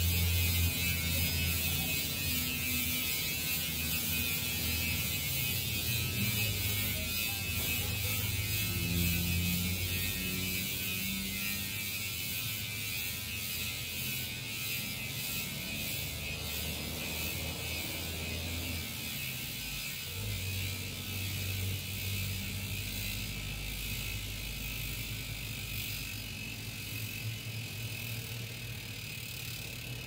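Chosen 150T rear hub freewheeling as the wheel coasts: three pawls clicking over a 150-tooth drive ring so fast that they blend into a high, dense buzz. The buzz falls in pitch and fades slowly as the wheel loses speed.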